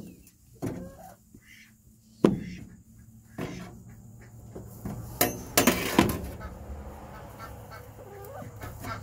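Hen squawking as she is coaxed out of a nesting box, mixed with rustling and several sharp knocks from the handling. The biggest knocks come about two seconds in and again about five to six seconds in.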